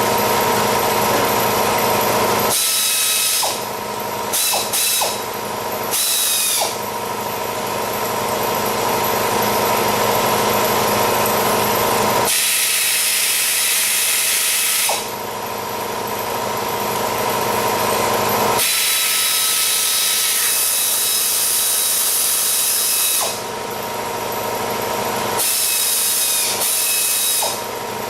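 Power tools running in long stretches while a turbo diesel engine is stripped down. The sound switches every few seconds between a steady hum and a higher hiss.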